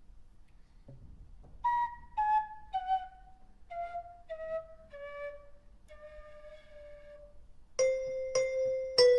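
Children's music composition: a flute-like wind instrument plays a slow run of short notes stepping down in pitch, then holds a lower note. Near the end a louder, brighter note enters and repeats in a steady pulse.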